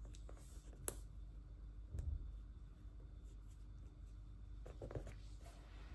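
Faint handling sounds of stickering a paper planner page with tweezers. There is a sharp tick about a second in, a soft thump at about two seconds, and a brief rustle of the sticker sheet and paper near the end.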